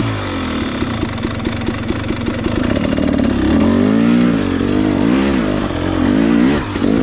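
Two-stroke 300cc enduro dirt bike engine working hard at low speed, the revs rising and falling in repeated throttle blips. Frequent sharp clicks and knocks run through it.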